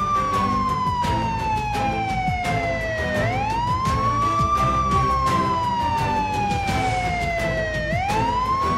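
A wailing siren that rises quickly in pitch and then falls slowly, repeating about every four and a half seconds, over background music.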